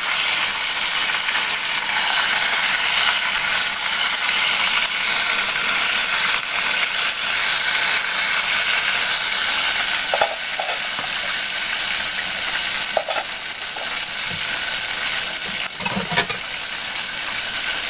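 Green papaya and sardines sautéing in a pan: a steady sizzle as the dish cooks.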